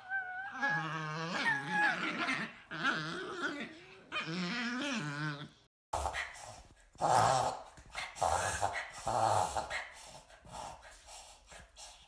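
Two dogs play-growling at each other, long growls and whines that waver in pitch with a few high squeaky notes. After a short break a small Shih Tzu-type dog takes over with a string of rough, irregular grumbling vocal sounds that fade near the end.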